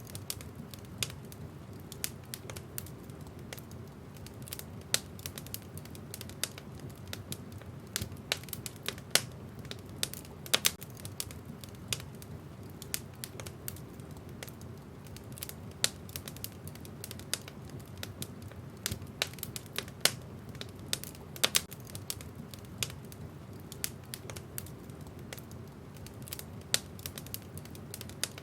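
Wood fire in a fireplace crackling: irregular sharp pops and snaps of burning logs over a low steady rush of flame.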